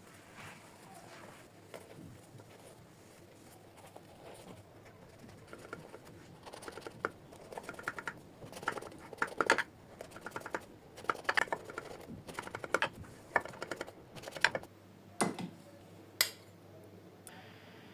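Kitchen prep sounds: irregular sharp taps and clicks of utensils. They start about a third of the way in, come thickly through the middle, and end with a few louder knocks.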